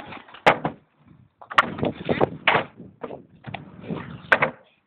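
Trick kick scooter clattering on a plywood box ramp and asphalt: several sharp clacks as the deck and wheels hit the wood, over rough wheel noise.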